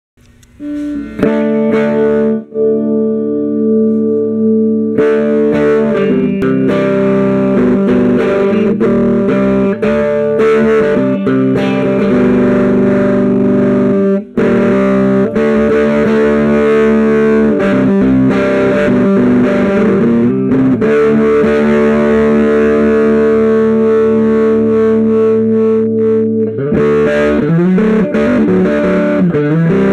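Electric guitar played through a 1964 Marshall JTM45 block-logo 2x12 combo amplifier with KT66 power tubes: chords struck and left ringing, changing every second or few, with a short break about halfway through.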